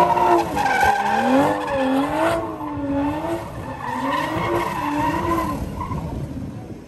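Toyota GR Supra's tyres squealing as it spins donuts, the squeal wavering up and down in pitch over the noise of the engine and spinning tyres. It fades near the end.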